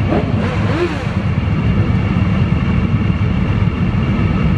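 Motorcycle engine idling, a steady low rumble.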